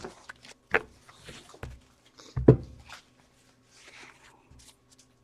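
Stacks of trading cards being handled and set down on a glass counter: scattered light taps and rustles, with one louder knock about two and a half seconds in.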